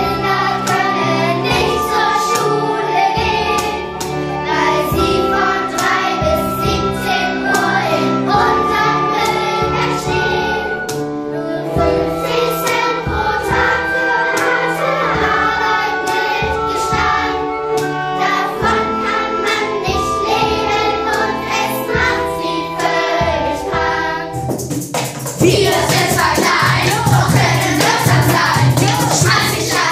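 Children's choir singing a pop song in German, backed by a small band of violin, cello, electric guitar and drums. About 25 seconds in, the sound changes abruptly to a louder, fuller mix.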